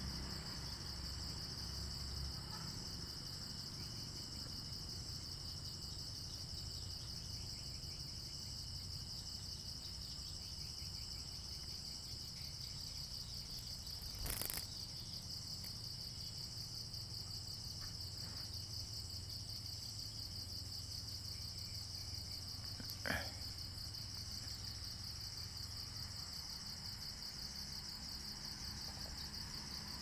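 Steady high-pitched chorus of crickets and other night insects, with a low hum underneath. Two short sharp clicks break in, one about halfway through and one about three quarters of the way through.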